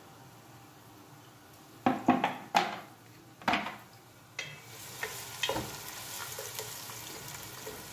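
Chopped onion frying in melted clarified butter in a pot, stirred with a wooden spatula. A few loud knocks about two seconds in, then a steady sizzle that builds from about halfway.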